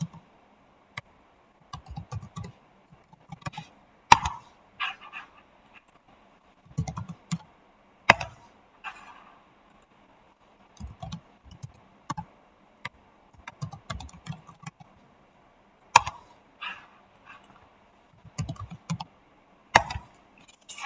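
Typing on a computer keyboard in short irregular bursts, with a few single sharper clicks between them, while variables are entered in a PLC program.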